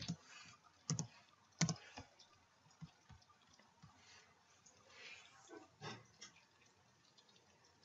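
Faint computer keyboard keystrokes: a few sharp key clicks in the first two seconds, then scattered softer clicks and one more distinct click about six seconds in.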